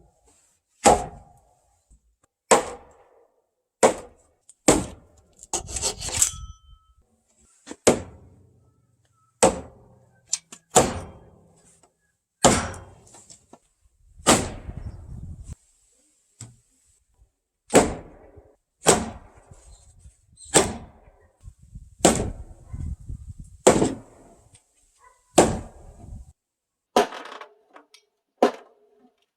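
A series of sharp knocks on wood, one every one to two seconds, each with a short ringing tail.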